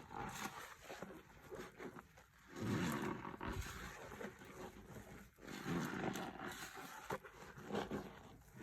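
Foamy floor-cleaner lather being squeezed and worked, squelching and squeaking in repeated swells every few seconds.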